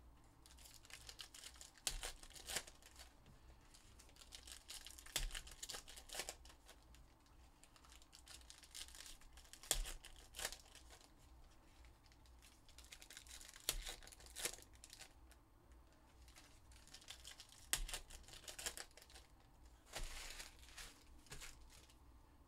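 Foil trading-card packs being torn open and crinkled, and a stack of cards being handled and tapped square. The sound is faint: scattered rustles and sharp little clicks, with a longer crinkle near the end.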